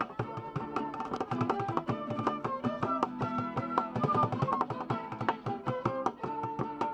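Music: a band playing a busy passage of quick plucked or struck pitched notes over steady drum and percussion hits.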